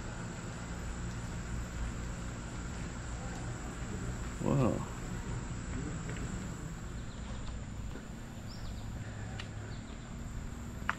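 Steady high-pitched insect trilling over a low outdoor rumble, with a brief voice about four and a half seconds in.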